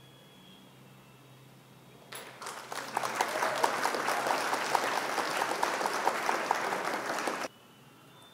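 Recorded applause sound effect, starting about two seconds in, rising over about a second, and cutting off suddenly near the end. It marks the reveal of the quiz answer.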